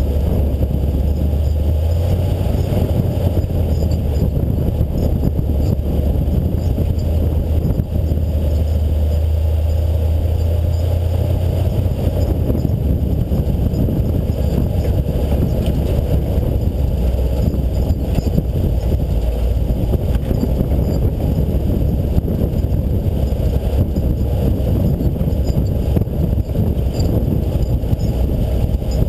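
A 4x4's engine running steadily as it drives off-road, a low drone that shifts about twelve seconds in and turns rougher.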